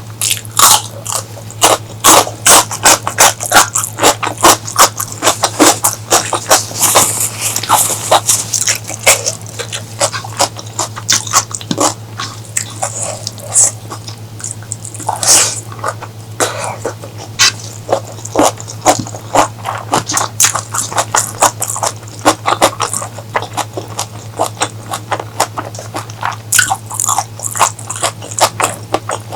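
Close-miked eating: a person chewing and biting with a dense, irregular run of loud, sharp, wet mouth clicks, over a steady low hum.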